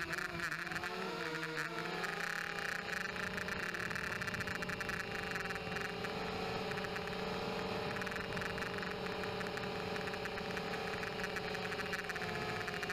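Blade 200QX quadcopter's motors and propellers whirring, heard from on board the aircraft, with a steady hiss under it. The pitch wavers up and down in the first couple of seconds as the throttle changes, then holds steadier.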